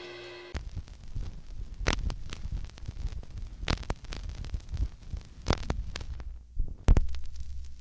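The last chord of a 1950s rock and roll record dies away, then a low hum remains with scattered clicks and pops about every two seconds and a louder thump near the end: record playback noise after the song has ended.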